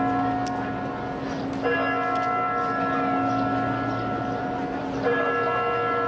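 A large bell tolling slowly. It is struck twice, about three and a half seconds apart, and each stroke rings on at length over a steady low hum.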